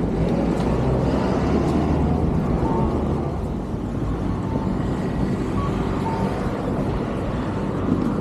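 Outdoor city street ambience: a steady low rumble of traffic noise, with a few faint short high tones scattered through it.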